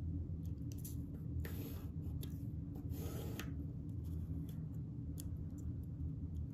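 Pencil and steel ruler rubbing and scraping on drawing paper as straight lines are ruled and the ruler is shifted: two longer scratchy strokes about a second and a half and three seconds in, with light ticks between, over a steady low hum.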